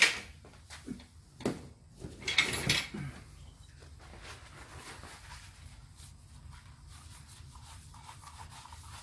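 A sharp knock at the start and a few clunks and a rustle about two seconds in, then a rag rubbing softly over the air compressor's valve plate as it is wiped clean of the debris that keeps its intake valve from sealing.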